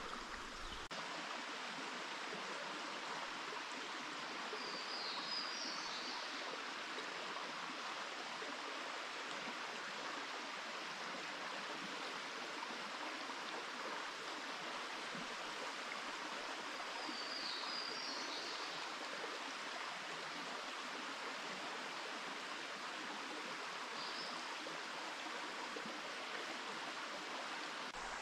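Steady rush of a flowing stream, with three short high chirps near 5, 17 and 24 seconds in.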